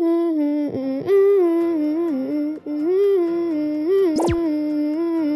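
A voice humming a tune in stepping notes, with a brief falling sound effect about four seconds in.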